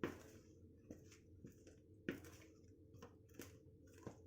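Faint, irregular scrapes and taps of a utensil stirring the dry cookie ingredients (flour, baking powder and baking soda) together in a bowl.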